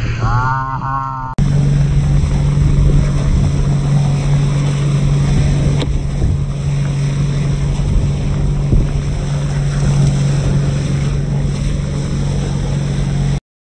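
Outboard motor running steadily as an inflatable boat moves at speed, with wind and water rushing along the hull. In the first second comes a short high wavering call, then a sudden break.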